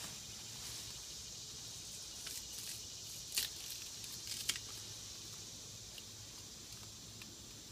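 Leafy undergrowth rustling and crackling as hands work through the plants, with a few sharp snaps of stems or twigs, the loudest about three and a half and four and a half seconds in.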